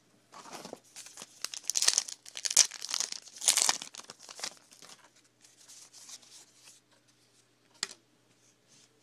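A 2011 Topps Allen & Ginter's baseball card pack being torn open and its wrapper crinkled, in a string of rough tearing strokes that are loudest in the first four seconds. Fainter rustling follows, with one short sharp click near the end.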